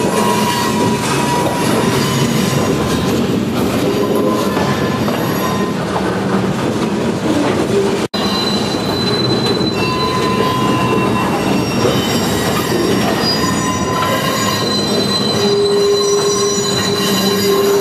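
Covered grain hopper cars rolling slowly over curved track and switches, their wheels squealing in several high steady tones that come and go over the rumble of the wheels. The sound cuts out for an instant about eight seconds in.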